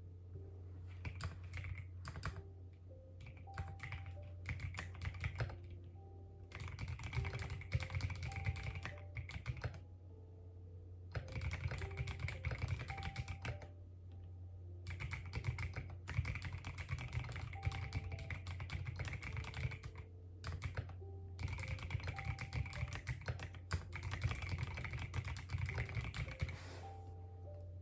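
Fast typing on a computer keyboard, keys clicking in runs of several seconds broken by short pauses. Soft background music plays faintly under it.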